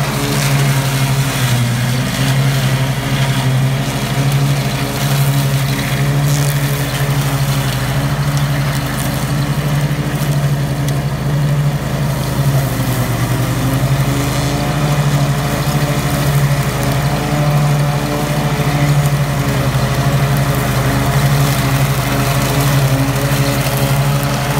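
Ride-on mower engine running steadily with its cutting deck engaged while it mows through flattened blackberry brush, the engine note sagging briefly a couple of times as it takes the load.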